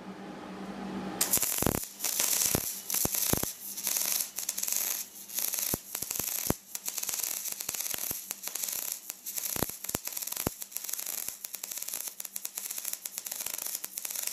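MIG welding arc struck about a second in, then crackling steadily with frequent sharp pops as the wire feeds into the weld; before that only a low hum.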